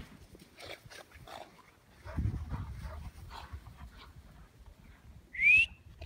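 Two Presa Canario dogs play-fighting in deep snow, with scuffling noises and low rumbling. Near the end one dog lets out a single short, high yelp that rises in pitch.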